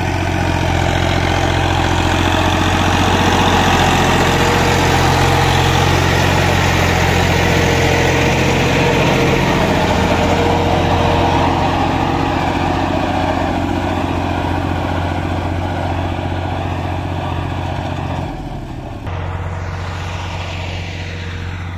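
Fiat 480 tractor's three-cylinder diesel engine running steadily while it pushes soil with a front blade. The sound drops in level and thins out a little past three-quarters of the way through.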